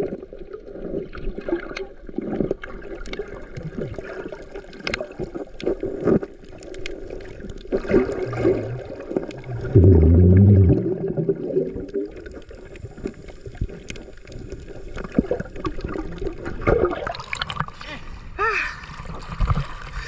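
Water gurgling and sloshing, with scattered irregular knocks and a loud low rush about ten seconds in.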